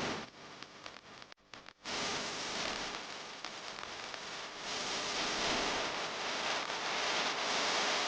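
Water spraying hard from a pressure-washing wand onto a surface: a steady hiss. It drops out briefly about a second and a half in, then resumes evenly.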